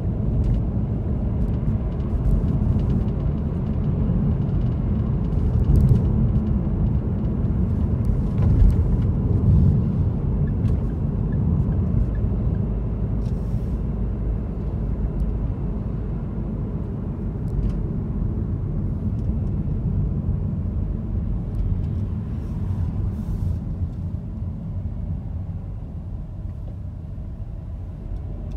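Car driving on city streets: a steady low rumble of road and engine noise that eases a little near the end, with a few faint clicks.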